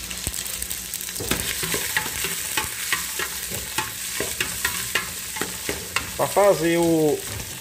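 Diced pork fat (torresmo) sizzling as it fries in oil in a metal pot, with a ladle stirring it and clicking and scraping against the pot. A brief voice about six seconds in.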